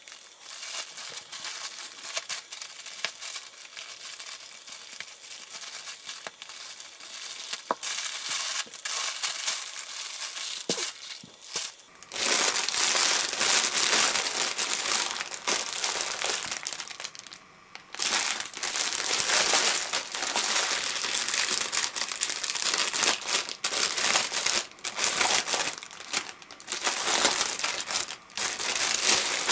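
Plastic packaging crinkling under handling: first a black plastic postal mailer being opened, then, much louder from about twelve seconds in, a clear plastic bag around a folded velvet cloth being handled and pulled open. There is a short pause around the middle of the louder part.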